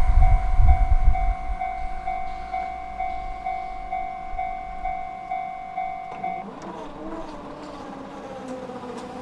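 Japanese level crossing's electronic warning bell ringing in a steady repeating clang, then stopping about six and a half seconds in as the crossing clears after the train. The rumble of the departing train fades away under it in the first few seconds.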